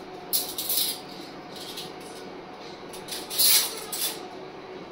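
A person sipping a protein shake from a glass mug: two short hissy sounds, about half a second in and again around three and a half seconds, over a faint steady hum.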